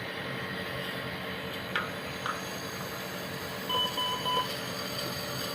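Three short electronic beeps from NICU medical equipment a little past the middle, over a steady background hiss, with two faint clicks shortly before.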